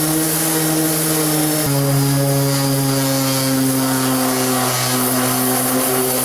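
Bosch 3725DVS random orbit sander running steadily while pressed onto the painted aluminum bottom of a jon boat, sanding the paint off. Its motor pitch steps down a little about two seconds in.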